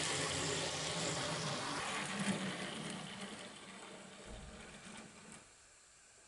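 Model diesel locomotive's electric motor and wheels running on the track with a steady whirr, fading over a few seconds until it goes quiet about five seconds in: the train is slowing to a stop under Lenz ABC asymmetric-DCC braking.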